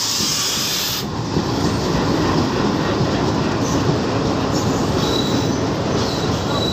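WDM3A diesel-electric locomotive, with its ALCO 16-cylinder engine, running past slowly as the train arrives, followed by its passenger coaches rolling by on the rails. A high hiss stops sharply about a second in, and a faint high wheel squeal comes in near the end.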